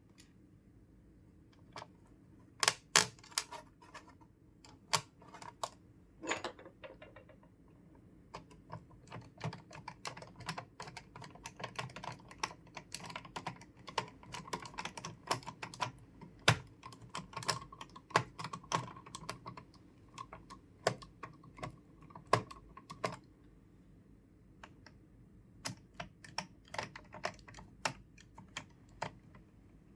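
Irregular small clicks and taps of plastic and metal computer parts being handled and fitted together during reassembly, coming thick and fast through the middle stretch.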